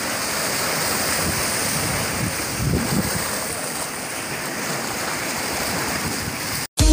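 Sea waves washing and breaking against shoreline boulders, a steady rushing surf that cuts off suddenly near the end.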